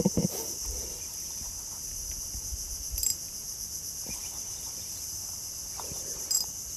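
Steady high-pitched drone of insects chirring in riverside mangroves, with a few faint clicks near the start, about three seconds in, and near the end.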